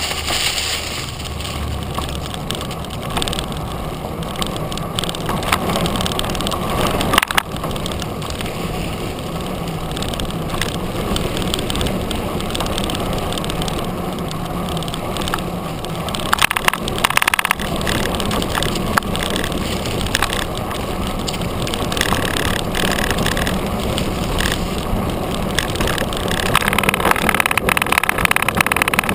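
Gary Fisher / Trek Rumblefish 29-inch full-suspension mountain bike rolling fast along a dirt trail, heard from a camera on the front fork: steady tyre-on-dirt and rattling noise, with sharp knocks about seven seconds in and around seventeen seconds, and louder rattling near the end.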